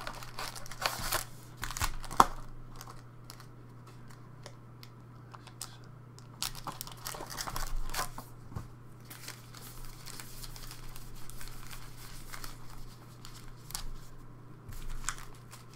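Foil trading-card packs crinkling and rustling as gloved hands lift them out of a cardboard display box and stack them, with a sharp click about two seconds in. A steady low hum runs underneath.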